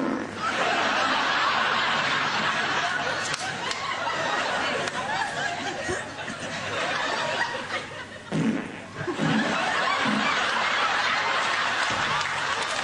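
An audience laughing steadily, easing off briefly about eight seconds in before picking up again.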